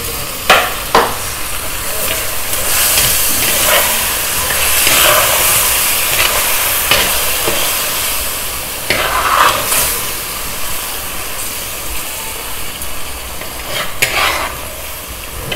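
Onions, drumsticks and crushed tomato sizzling in hot oil in a kadai as a metal spatula stirs them, with a sharper scrape or knock of the spatula against the pan now and then.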